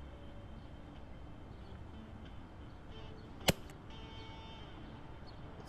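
A single sharp crack of a 9mm EDgun Leshiy 2 pre-charged pneumatic air rifle firing, about three and a half seconds in, over faint background music. A second short, sharp click comes right at the end.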